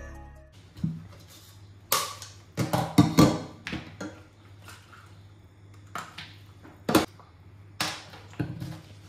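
Plastic parts of a baby's water bottle being pulled apart, handled and set down in a stainless steel sink: scattered clicks and knocks, the loudest about 2, 3 and 7 seconds in.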